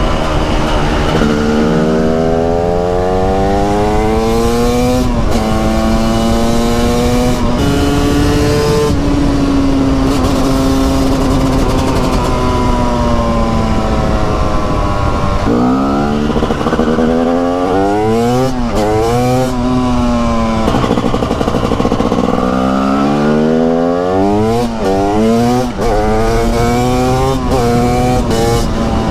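TM SMR 300 supermoto's single-cylinder two-stroke engine under way, revs climbing and dropping back several times as it pulls up through the gears. In the middle it holds a steadier note, then the revs rise and fall quickly as the throttle is opened and closed.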